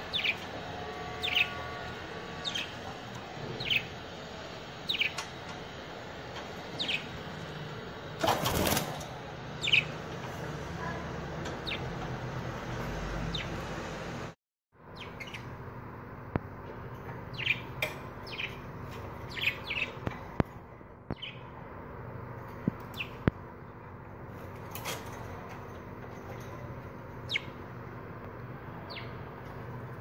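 Budgerigars chirping: short, sharp falling chirps, about one a second at first and then in quicker clusters, with a brief rustle about eight seconds in.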